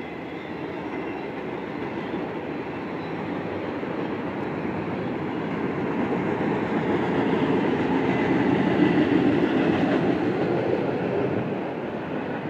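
Auto-rack freight cars rolling across a steel trestle bridge: a steady rumble of wheels on rail that swells louder over the middle seconds and eases near the end.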